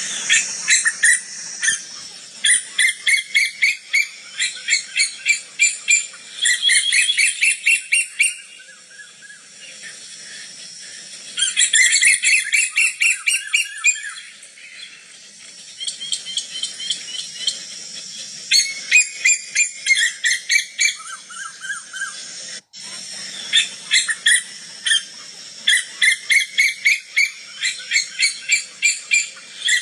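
Female koel calling: bursts of rapid, sharp repeated notes, about four or five a second, each run lasting a few seconds with short pauses between.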